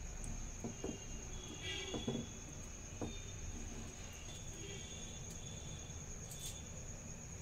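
A metal spoon stirring yogurt and mayonnaise in a steel bowl, giving a few light clinks against the metal. A steady high-pitched trill runs underneath throughout.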